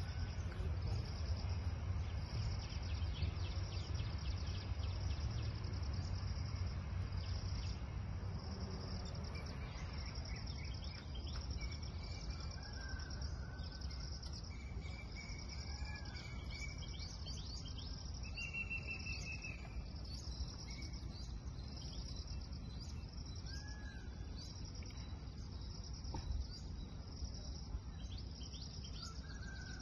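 Outdoor ambience dominated by crickets chirping in a steady, high, pulsing chorus, with a few short bird chirps scattered through it and a low background rumble that eases after the first ten seconds.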